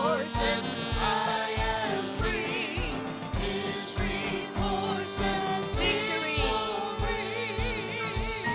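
Live gospel worship song: several singers with a church band, voices with vibrato over a steady drum beat.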